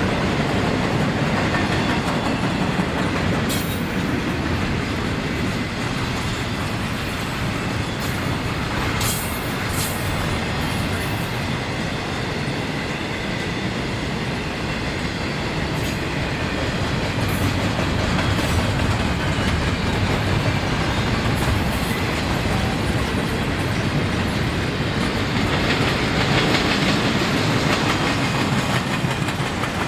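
A long train rolling past on the track, its cars' wheels clicking over the rail joints in a steady rumble, with sharp clicks now and then.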